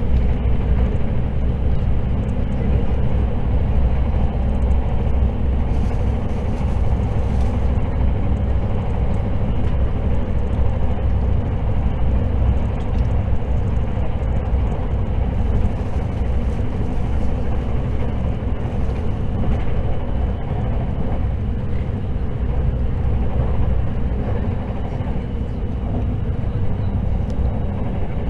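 Running noise heard inside the passenger cabin of a Hakutaka limited express electric train travelling at speed: a steady low rumble that does not change.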